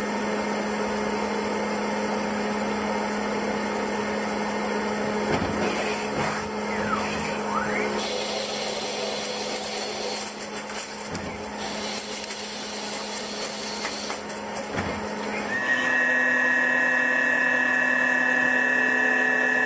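CNC machine tool cutting metal: a steady spindle hum under cutting noise. About three-quarters of the way in, it changes to a louder, steady high-pitched whine as another machining operation takes over.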